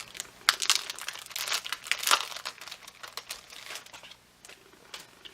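Crinkly packaging around a set of paper clips being handled and opened: irregular sharp crackles, busiest in the first three seconds and thinning out near the end.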